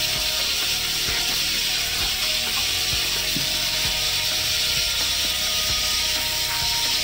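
Hands squishing and turning marinated chicken pieces in a large aluminium pot, giving wet irregular clicks, over a steady hiss.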